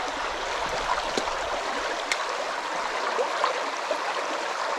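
Shallow stream rushing over rocks in a riffle, a steady even babble, with a couple of brief ticks in the first half.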